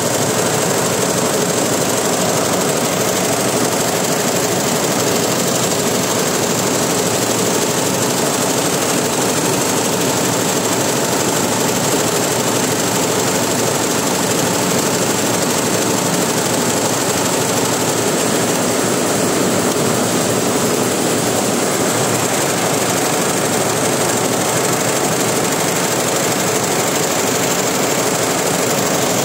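Computerized embroidery machine running steadily, its needle head stitching silver metallic cord onto fabric at an even pace.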